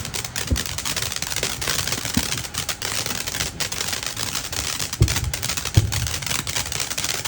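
Fireworks crackling: a dense, continuous rattle of rapid small pops, with two heavier bangs about five and six seconds in.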